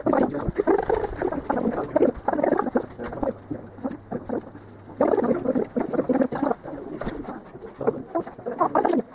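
Bird and animal calls with dove-like cooing, in irregular bursts, easing off about three seconds in and picking up again at five.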